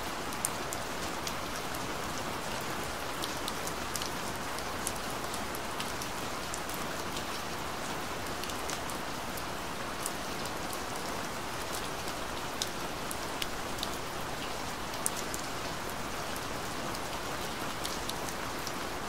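Steady rain falling: an even hiss with many irregular sharp ticks of individual drops landing.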